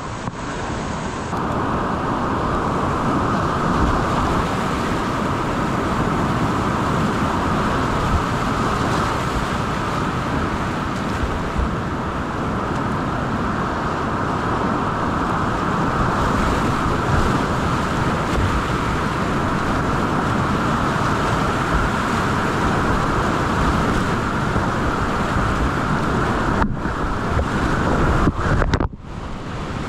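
Steady rushing roar of whitewater rapids on a class IV creek running at about 1280 cfs, with a few brief dips in level near the end.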